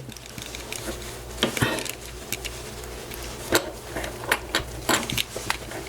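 Scattered small clicks and scrapes of a tool prying at the sealed plastic case of a Digipass authenticator, over a low steady hum.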